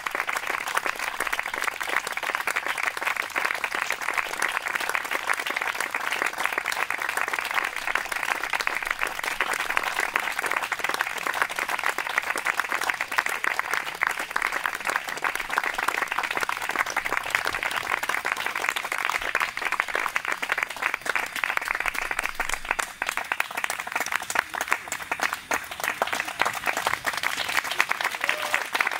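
An audience applauding, a dense crackle of many hands clapping that keeps up without a break.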